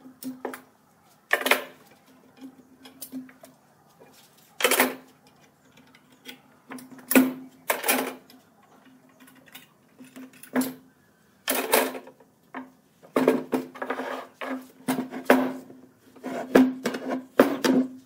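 Metal bar clamps being worked and taken off a stack of wooden blocks: irregular sharp clicks and clanks of the clamp jaws and bars against the wood and the bench, coming thicker in the second half. A low steady hum runs underneath.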